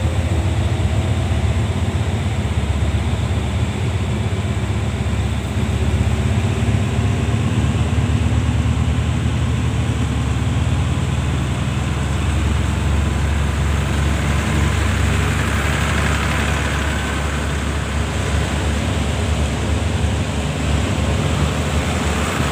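State Railway of Thailand diesel-electric locomotive running, with a loud, steady, deep engine rumble.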